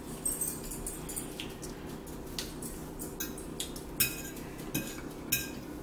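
Forks tapping and scraping on dinner plates during a meal: short, light clicks about once a second, over a steady low hum.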